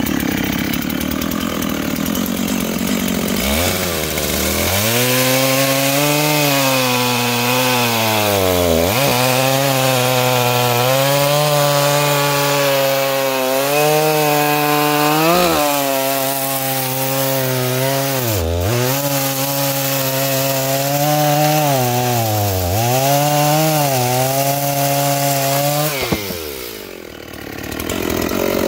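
Dolmar chainsaw at full throttle, then dropping in pitch as it goes into a big oak log and cutting under load for about twenty seconds, its revs sagging and recovering several times. Near the end it finishes the cut, slackens briefly, then revs again.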